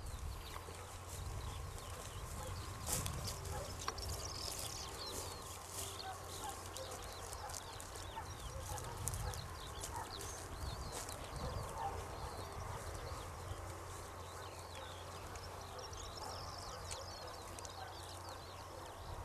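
Faint open-field ambience: a steady low rumble with many small high chirps and scattered light clicks throughout.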